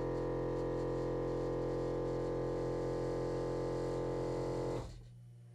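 Onboard air compressor of a Land Rover Defender's deployable air-step system running with a steady hum while charging its reserve air tank, then cutting off near the end as its pressure switch reaches 120 psi.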